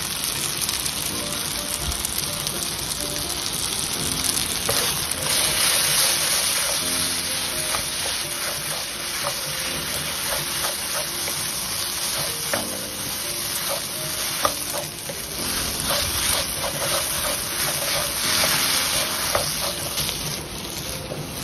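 Pad thai rice noodles and freshly added sauce sizzling in a hot nonstick wok while they are stirred and tossed with a wooden spatula, with occasional clicks of the spatula against the pan.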